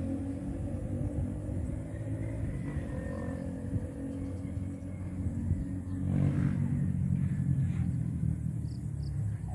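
KTM Duke 390 single-cylinder engine running through a decatted mid pipe and a stock muffler without its dB killer, heard as a low steady rumble. It dies down after a loud pass just before, then swells again about six seconds in.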